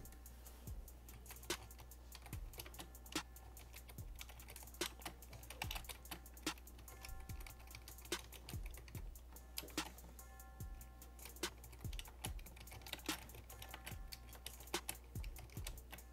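Typing on a computer keyboard: a long run of irregular key clicks, with faint music in the background.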